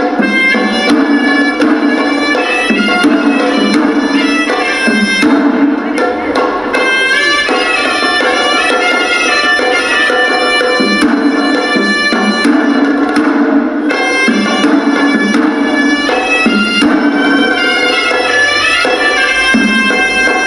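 Sri Lankan hewisi temple music: a horanewa, a double-reed shawm, plays a continuous, sliding, ornamented melody over steady beating of traditional drums.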